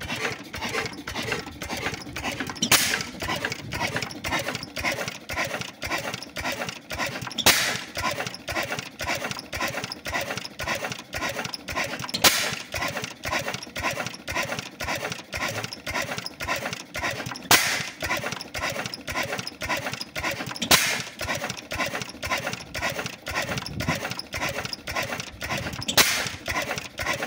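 Clutterbuck 6.5 hp oil engine running unloaded, its flywheels turning with a steady, rapid mechanical clatter. Six times, about every three to five seconds, it gives a sharp bang as it fires.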